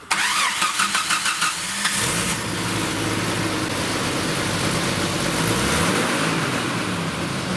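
1992 Jeep Wrangler YJ's 4.0-litre straight-six being cranked over by the starter with a quick even pulsing, catching about two seconds in, then running steadily. The engine still has the exhaust leak that is about to be patched.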